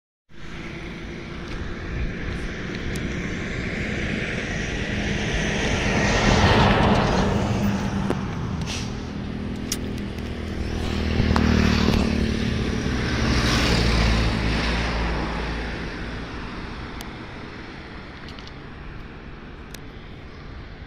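Passing vehicle noise, a steady rumble that swells twice, about six seconds in and again around twelve to fourteen seconds, then fades.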